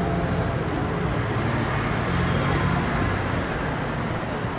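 Steady low engine hum and road traffic noise.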